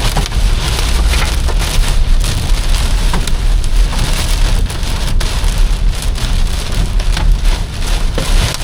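Heavy rain pelting the roof and windshield of a car, heard from inside, a dense patter of many sharp hits over a low rumble of the car on the road.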